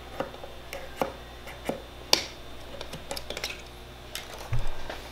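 Scissors snipping through plastic zip ties: a few sharp clicks, the loudest about two seconds in. A brief dull thump near the end.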